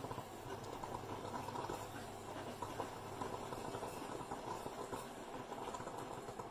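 Stainless steel moka pot heating on an induction hob, with a steady bubbling hiss as it brews.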